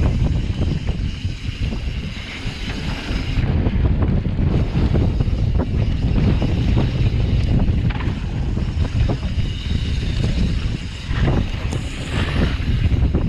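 Wind buffeting the microphone as a mountain bike rolls fast down a dry dirt trail, the tyres crunching over the loose surface, with scattered clicks and rattles from the bike over bumps.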